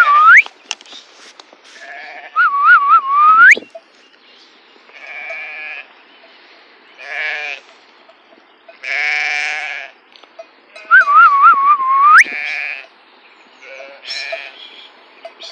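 Flock of sheep bleating, with a single bleat every second or two. The loudest sounds are a herder's whistled call, a few quick warbles ending in a sharp upward sweep. It is heard right at the start and twice more, about two and a half and eleven seconds in.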